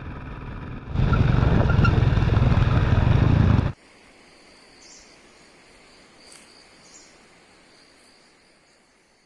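A steady engine hum, then a loud rushing noise for about three seconds that cuts off suddenly. After it come faint insect chirring and a few bird chirps, fading out.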